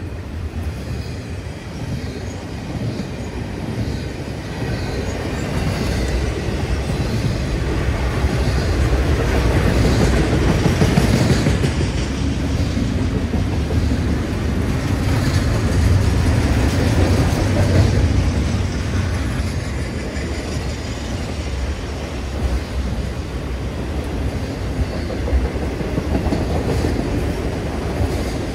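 CN intermodal freight train rolling past, a continuous rumble of wheels on rail that swells twice to its loudest in the middle stretch and then eases off a little.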